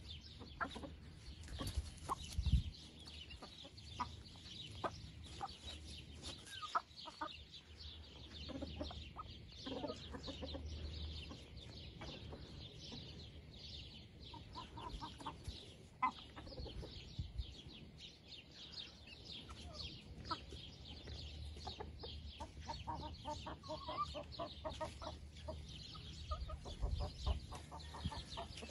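Chickens clucking in runs of short repeated notes, with a dense high-pitched chirring behind them throughout and an occasional low thump.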